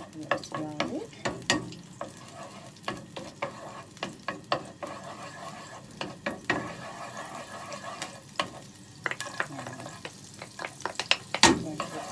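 Chopped garlic sizzling in melted margarine in a frying pan, with many sharp clicks and scrapes as a wooden spatula pushes the garlic off a plate and stirs it in the pan.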